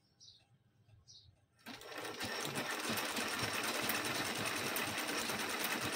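A domestic sewing machine starts up a little under two seconds in and then runs steadily at speed, stitching a seam through fabric with a rapid, even ticking of needle strokes. Before it starts, two faint short bird chirps are heard.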